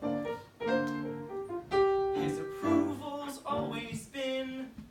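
A voice singing with piano accompaniment. One note is held for about a second near the middle.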